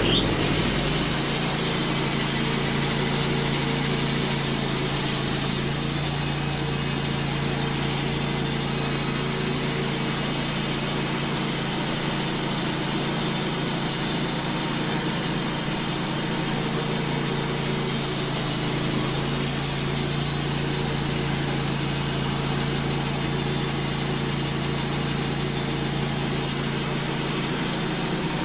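Wood-Mizer LT15 portable band sawmill running under power and cutting a slice off a hard maple log. It revs up at the very start, then holds a steady drone with a hiss over it.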